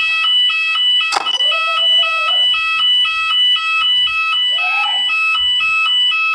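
Shop fire alarm sounder giving the alert tone of a voice-evacuation system: a loud electronic two-tone warble that alternates rapidly between a high and a low pitch. It cuts off suddenly near the end, ahead of the next spoken announcement.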